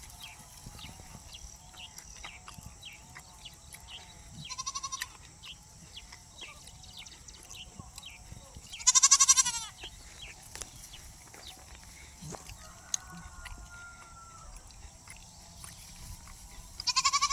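Goats and sheep bleating: a short fainter bleat a little before five seconds in, then two loud quavering bleats, one about nine seconds in and one near the end.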